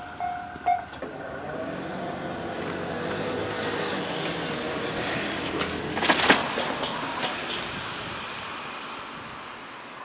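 Japanese level-crossing warning bell ringing in even electronic pulses, stopping about a second in. Then a road vehicle drives up and across the crossing, its noise rising and fading, with a quick run of clacks about six seconds in.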